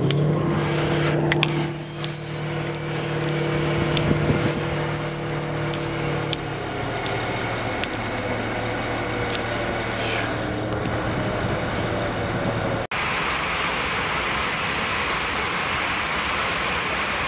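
Jet engine drone with a high whine that fades out over the first several seconds. An abrupt cut then brings a loud, steady rushing noise inside an airliner cabin with the oxygen masks deployed.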